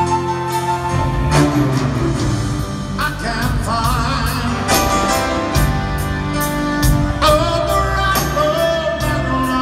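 Live arena concert music from a band with piano and drums, recorded from high in the seats. A male lead voice comes in singing about three seconds in.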